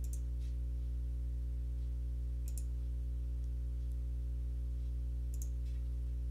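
Three sharp computer mouse clicks, about two and a half seconds apart, over a steady low electrical hum.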